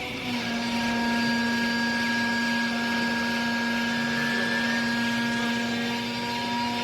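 Textile baler's hydraulic pump and motor running steadily under load, a whine over a hiss that rises in level shortly after the start.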